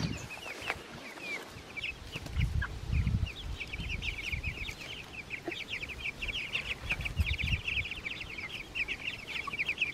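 A flock of young broiler meat chicks peeping, many short high peeps overlapping and growing denser after the first few seconds. A few low bumps come about three seconds in and again near seven seconds.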